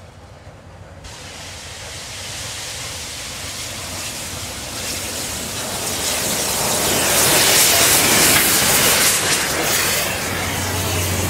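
Reading 2102, a 4-8-4 T-1 steam locomotive, approaching and passing with a growing rush of steam and running noise. It is loudest as the engine goes by, then eases a little as the passenger cars roll past on the rails.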